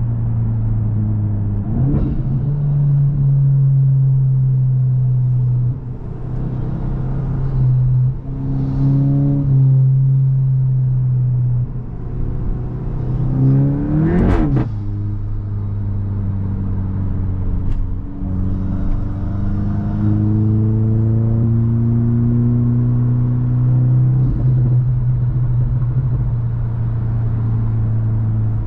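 Volkswagen Mk8 GTI's turbocharged four-cylinder running through an aftermarket iE catback exhaust and Stage 1 tune, a steady loud drone with the revs climbing in several stretches. About 14 seconds in there is a quick sharp spike and drop in revs, and there are brief sharp snaps at about 2 and 18 seconds.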